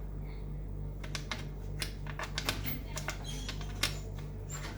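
Puzzle pieces being handled and fitted: a run of irregular light clicks and taps, over a steady low hum.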